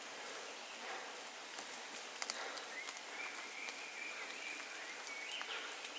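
Faint outdoor ambience: a quiet steady hiss with scattered small ticks and a thin high tone drifting through the middle.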